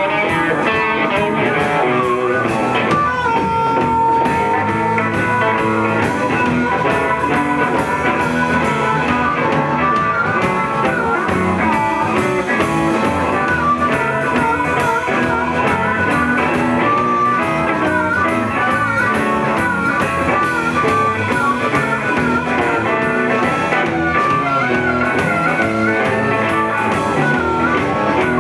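Live blues band playing: electric guitars, bass guitar and drum kit, with a guitar line of bent, wavering notes over the rhythm.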